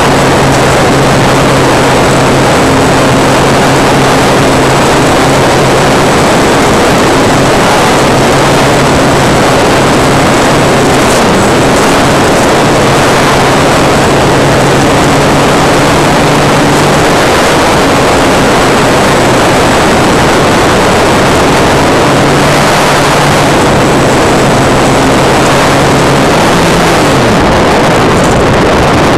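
Radio-controlled model plane's motor and propeller running in flight, heard from the onboard camera's microphone, with loud rushing wind noise over a steady low drone. The drone's pitch shifts slightly a few times and falls away near the end.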